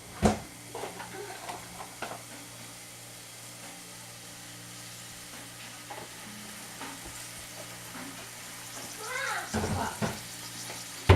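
Ham sizzling in a frying pan as it is stirred, with a sharp clack of the utensil on the pan about a quarter second in and light scrapes and clicks after.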